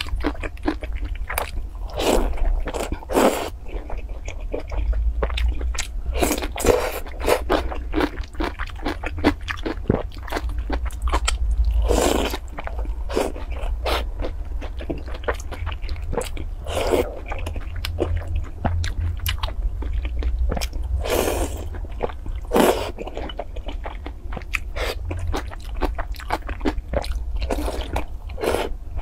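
Close-miked eating of milk-soaked fried dough sticks (youtiao): wet biting and chewing with small crunches, and several longer slurps as pieces are sucked in.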